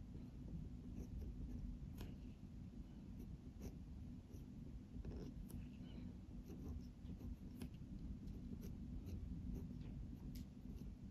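Pen nib scratching and tapping faintly across paper as characters are handwritten: short, irregular strokes over a low steady hum.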